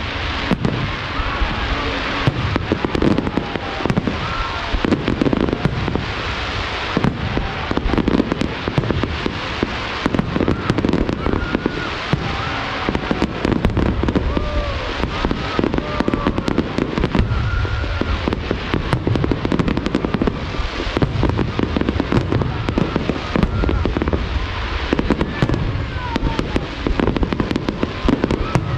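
Aerial fireworks display going off in a dense, continuous barrage of bangs and crackles with no letup.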